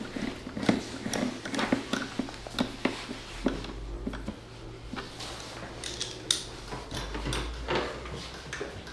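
Hand tools and metal parts clinking and knocking irregularly as they are handled, over a low steady hum.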